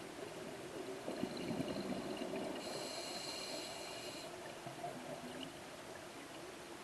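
Scuba diver breathing through a regulator underwater: a rush of exhaled bubbles, then a hissing inhalation through the regulator lasting about a second and a half.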